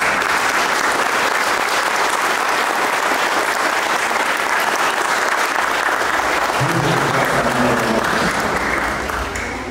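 Congregation applauding, a dense steady clapping that thins out near the end.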